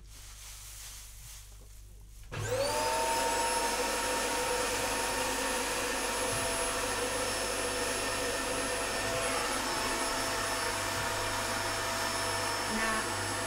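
An electric motor appliance starts about two seconds in, its whine rising quickly to a steady pitch and then holding evenly for about eleven seconds.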